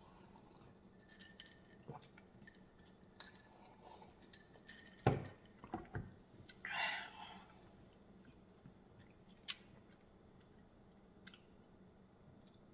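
Close-up eating and drinking sounds: sips from a glass of iced cola, a sharp knock about five seconds in as the glass is set down on a wooden tray, a short breathy sound, then quiet chewing with scattered small clicks.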